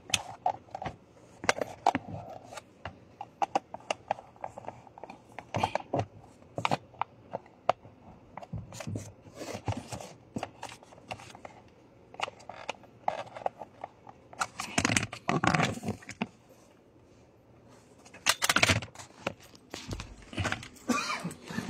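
Hand work on small parts: irregular clicks, taps and light knocks of tools and metal and plastic pieces being handled, with two longer rustling scrapes, one about two-thirds of the way in and one near the end.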